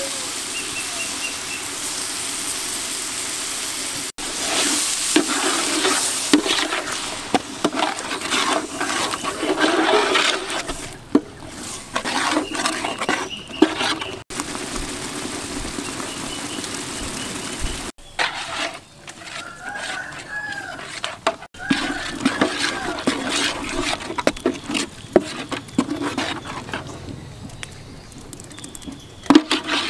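A metal ladle stirring and scraping a thick goat curry in a large aluminium pot, with irregular clinks and scrapes against the pot over a steady hiss of the cooking. A few short whistling calls come in about two-thirds of the way through.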